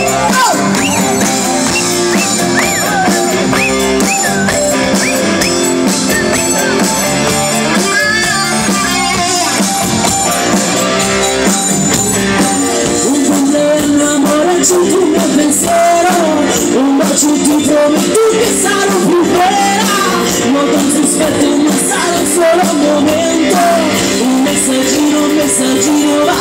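Amplified live band music with a woman singing into a microphone, backed by electric bass, drums and keyboard, heard loud from in front of the stage.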